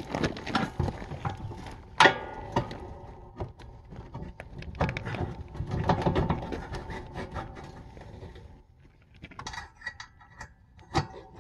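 Steel hitch pin scraping and clicking as it is worked through the UTV plow mount bracket, with a sharp metal click about two seconds in and another near the end.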